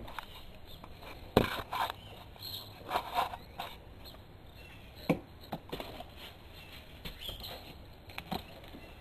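A cat walking inside a homemade cat exercise wheel, with scattered knocks and thumps as the wheel turns. The loudest knock comes about a second and a half in, a cluster follows around three seconds, and single knocks come near five seconds and again near the end.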